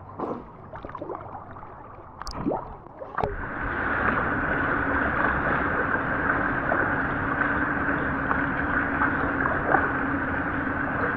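A boat's motor running steadily, with water noise, starting about three seconds in and holding an even pitch. A few brief knocks come before it.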